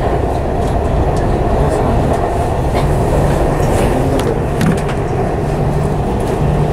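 Dubai Metro train running at steady speed, heard from inside the carriage: a continuous rumble and low hum, with scattered light clicks and ticks.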